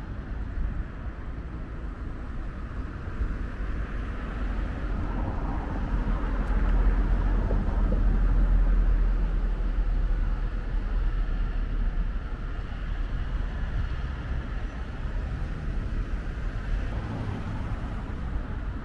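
Steady road traffic noise with a deep rumble, growing louder about six seconds in and easing off again after about ten seconds.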